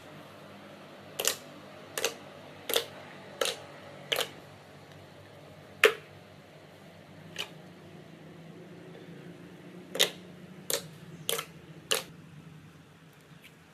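Sharp clicks: five in a row about one every 0.7 s, two more spaced further apart, then four more close together near the end, over a faint steady hum.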